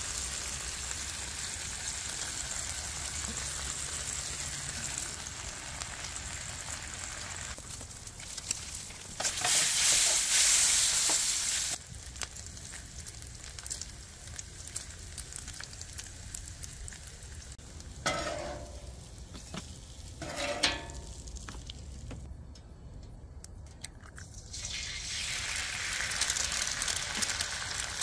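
Food sizzling on a hot Blackstone flat-top steel griddle, a steady frying hiss that swells into a much louder sizzle for a few seconds about ten seconds in. A few sharp clicks around two-thirds of the way through.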